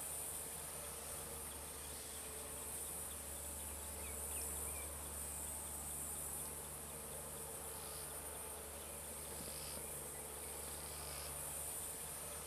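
Steady high-pitched chorus of insects over a low steady rumble, with a few faint short chirps.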